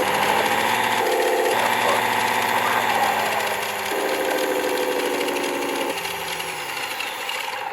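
Simulated engine sound from an RC model's sound module, played through its small loudspeaker: a steady engine note whose revs step up and down several times, then cuts off suddenly at the end.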